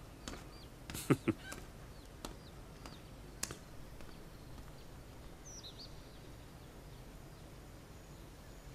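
Quiet outdoor ambience: two sharp knocks about a second in and a single click a couple of seconds later, then a few short falling bird chirps over a faint steady background.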